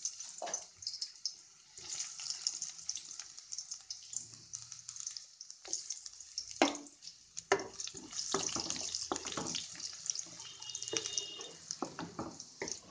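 Sliced onions sizzling in hot oil in a kadhai, a steady hiss with many small pops and crackles. Near the end a wooden spatula stirs them against the pan.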